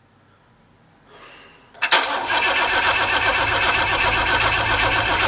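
Diesel engine starting: a brief crank about a second in, then it fires just before two seconds and runs loud and steady with a fast, dense clatter.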